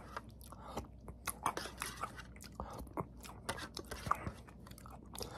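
Chewing and crunching a mouthful of Billotte yogurt with its crunchy crunch-ball topping: many short, irregular crunches.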